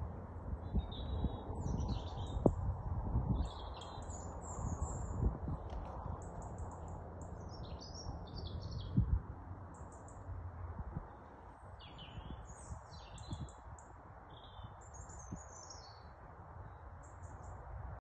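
Small songbirds chirping in short, high phrases throughout, over a low rumble with a few dull thumps during the first half that dies down about eleven seconds in.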